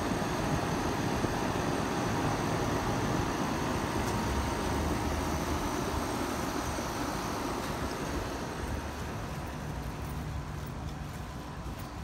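Carrier central air conditioner outdoor condensing units running: a steady whoosh of the spinning condenser fan with a low hum underneath, getting a little quieter after about eight seconds.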